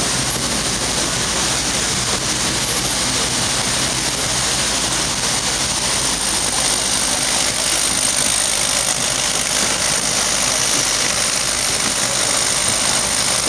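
Narrow-gauge forest railway train under way: the locomotive's engine drones steadily under the running noise of the wheels on the track, heard from an open carriage.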